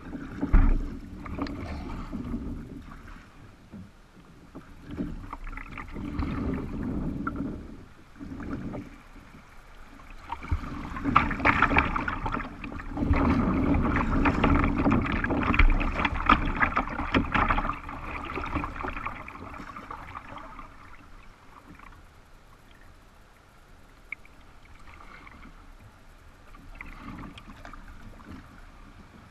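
Water splashing and rushing around a kayak's hull on a shallow river, with irregular splashes through the clip. It gets louder and rougher for several seconds in the middle, where the kayak runs through choppier water.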